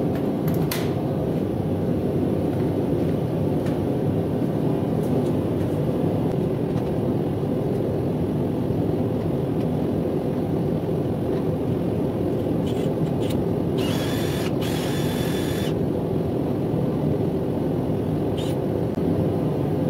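Propane forge burner roaring steadily. About 14 seconds in, a brief harsher hiss lasting under two seconds sits on top.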